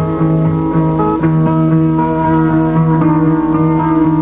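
Instrumental background music, with plucked notes changing about every half second.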